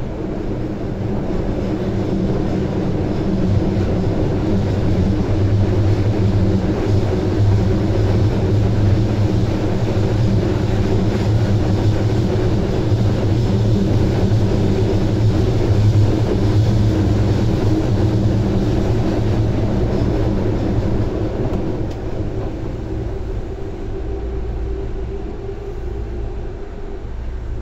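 Osaka Metro subway train with GTO-thyristor inverter control running between stations, heard from inside the car: steady wheel-and-rail rumble with a constant low hum from the traction drive. It grows louder over the first few seconds and eases off after about twenty seconds.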